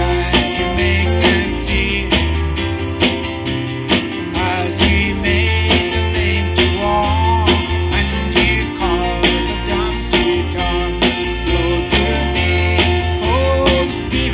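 Live band playing a gospel song: strummed acoustic guitar over a steady drum beat and a strong bass line, with a man singing lead.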